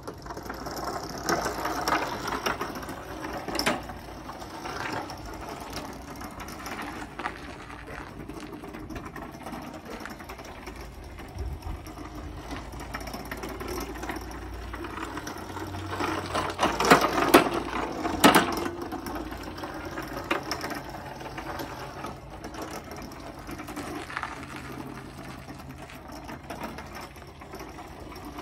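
Chain-driven wheelchair motors of a home-built electric mower chassis running as it drives: a steady whir with a loud clatter of drive chains. A burst of louder knocks comes about two-thirds of the way through.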